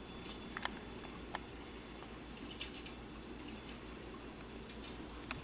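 Faint, scattered light clicks and rattles from a motorized interactive cat toy as it runs, over a low steady background.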